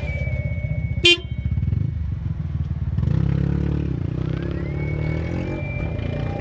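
Nissan Leaf EM57 electric drive motor and reduction gear heard while driving: a steady low road rumble with a thin high motor whine that rises in pitch about four seconds in and then holds. A single sharp knock about a second in, which the owner suspects comes from worn motor/gearbox mounts.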